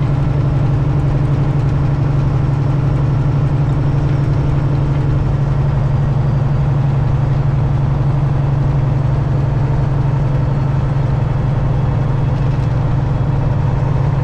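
Detroit diesel engine of a Peterbilt 379 semi truck running steadily at an even engine speed, with no revving or gear changes.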